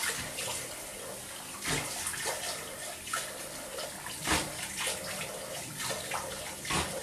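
Water running from a tap, with irregular splashes of water scooped up and splashed onto the face to rinse off after a straight-razor shave.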